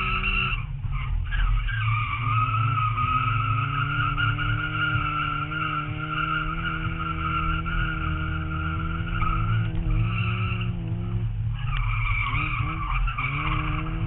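Nissan 240SX drifting, heard up close at a smoking rear tyre: the engine runs at high revs while the tyre squeals and scrubs. Twice the revs drop away and climb back, about a second in and again near the end.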